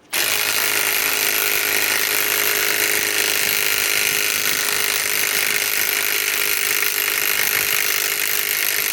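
Milwaukee M18 Fuel Gen 2 mid-torque cordless impact wrench hammering steadily on an 8-inch lag bolt. It kicks in sharply at the start and runs without a break at full speed, the bolt stalled at the limit of what the tool can drive.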